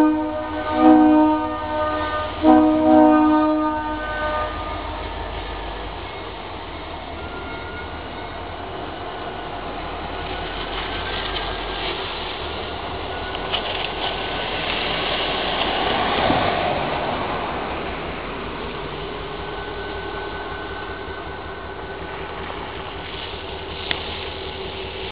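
Diesel locomotive's multi-chime air horn blowing a few blasts, then an EMD GP40 locomotive rolling past with engine and wheel-on-rail noise that builds to its loudest about two-thirds of the way through and then eases off.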